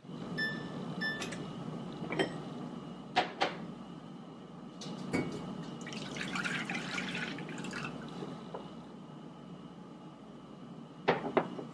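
Water running steadily from a kitchen tap, with scattered clinks and knocks of dishes, a denser run of them about midway.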